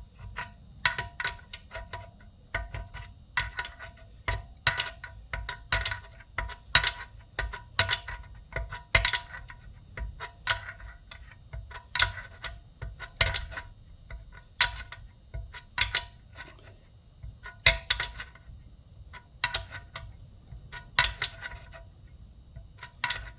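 Metal clicking and clinking in irregular bunches, each click with a short metallic ring, as a fitting is screwed into the compressor assembly.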